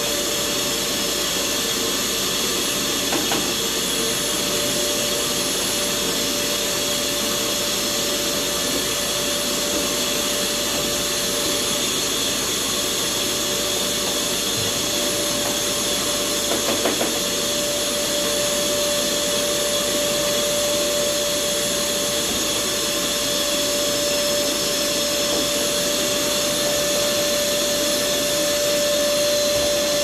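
Red canister vacuum cleaner running steadily with a constant whine while its hose nozzle is worked inside the kitchen cabinet bases. Two brief rattles break in, about three seconds in and again near the middle.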